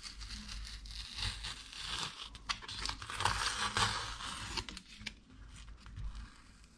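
Painted masking tape being peeled by hand off an acrylic-painted wooden panel: a crackly tearing, loudest a little past halfway and dying down near the end.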